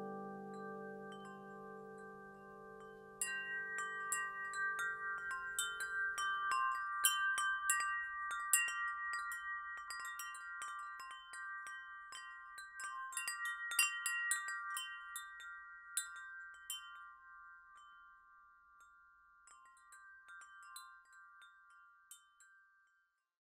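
Wind chimes tinkling: many quick, random strikes with ringing tones enter about three seconds in over a low held chord that fades out by about six seconds, then thin out and die away near the end.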